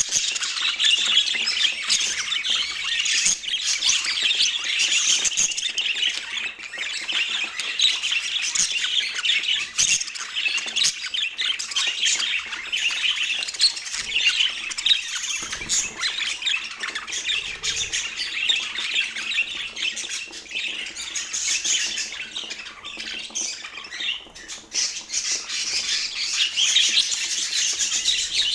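A group of budgerigars chattering continuously, a dense, unbroken mix of squawks and chirps.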